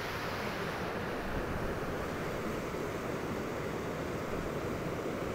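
Glacial meltwater of the Bhagirathi (Ganga) rushing steadily out from under the Gangotri glacier's snout.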